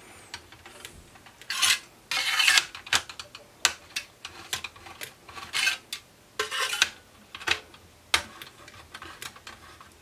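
A 3 mm hex wrench turning and loosening the steel heatsink screws on a Mac Pro CPU tray: irregular short metallic scrapes and clicks, with the longest, loudest scrape about two and a half seconds in.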